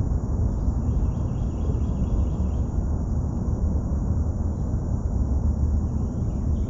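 Steady low outdoor rumble on a small boat, with faint high cricket-like chirps in the background.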